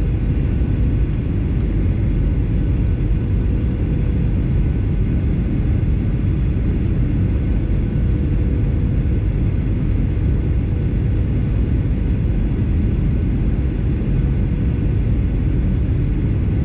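Steady cabin noise of a Boeing 737 on its landing approach, heard from inside the cabin: an even, loud rumble of engines and airflow, with a faint steady hum running through it.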